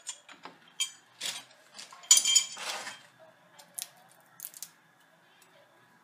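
Metal clinks and scraping of locking pliers and wrenches on a threaded iron pipe fitting: a run of sharp metallic clicks, with the loudest, longer clatter about two seconds in, then fading out.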